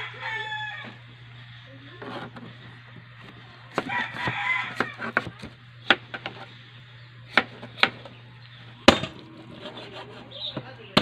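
Knife strikes on a plastic cutting board as chayote is sliced and then chicken is chopped: scattered sharp knocks, the loudest near the end. A rooster crows in the background at the start and again about four seconds in.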